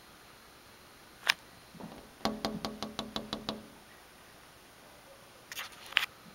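Raccoon eating dry pet food from a ceramic bowl on a wooden deck. A single knock comes first, then a quick run of about ten crisp crunching clicks over a low hum, and a few more clicks near the end.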